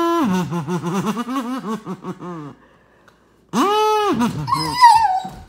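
A kazoo buzzing, its held note sliding down into a wobbling warble, then another kazoo note after a short silence about three seconds in. Near the end a German Shepherd answers with a high, wavering whine.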